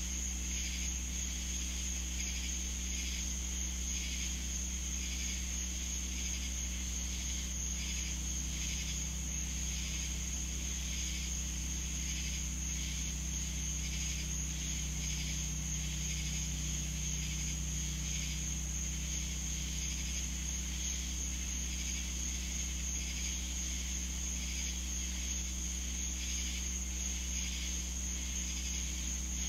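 Swamp insect chorus: a steady high-pitched trill with a layer of rapid pulsing chirps beneath it, over a low steady drone.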